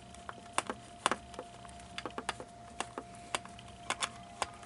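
Irregular light clicks and taps of hard plastic animatronic parts being handled and unscrewed during disassembly, over a faint steady whine.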